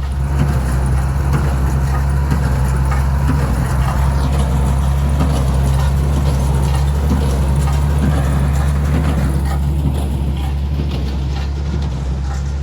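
Tractor engine running steadily while pulling a New Holland 316 square baler, with the baler's mechanical clatter of many small knocks over the steady engine sound.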